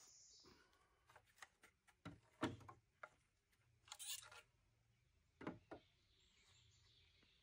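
Mostly near silence, broken by a handful of faint knocks and one brief scrape as hand tools and a metal level are handled against a wooden lumber frame.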